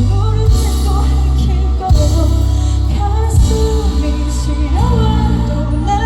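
Live pop band playing a song, with heavy sustained bass and a singing voice carrying the melody.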